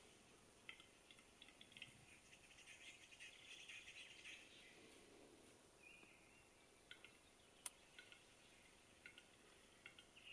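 Male western capercaillie's display song, faint: runs of dry clicks and scratchy notes, with one sharp, louder click nearly eight seconds in.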